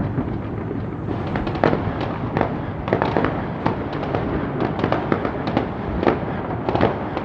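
Fireworks display: a dense, continuous run of bangs and crackling shell bursts, several a second, over a steady rolling rumble, with a few louder reports.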